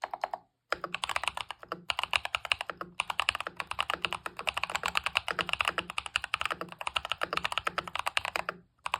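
Fast typing on a Red Dragon K561 Visnu mechanical keyboard fitted with lubed Akko CS Lavender Purple tactile switches, a tape mod and double-shot PBT keycaps. A rapid run of key presses after a brief pause near the start, stopping just before the end.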